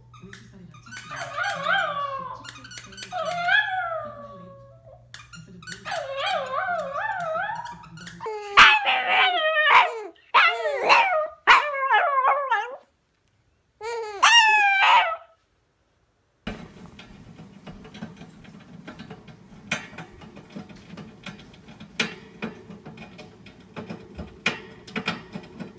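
Small dogs howling and yipping in runs of high, rising and falling calls; the loudest stretch is a quick series of yowls about a third of the way in. In the last third there are only scattered sharp clicks over a low steady hum.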